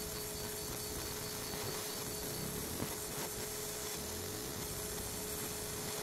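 100 W fiber laser engraver running as its beam ablates a brass Zippo lighter case: a steady hiss with a constant low hum, and one small tick about three seconds in.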